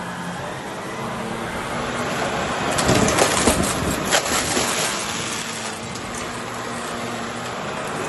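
Shark Lift-Away upright vacuum cleaner running on carpet, with a burst of clattering and rattling about three seconds in as it sucks up a pile of small hard debris.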